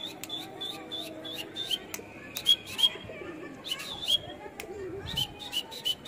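Small birds chirping: a rapid run of short, high chirps, several a second, coming in clusters.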